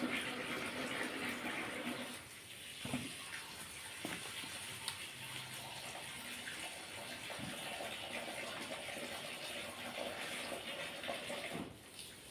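Tap water running into a sink, the flow easing off about two seconds in and again near the end, with a few light knocks of items being handled under it.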